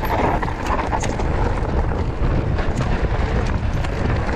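Mountain bike riding down a rough, rocky trail: tyres rolling over stones and the bike rattling and knocking in quick, irregular clicks, over a steady low rush of wind on the microphone.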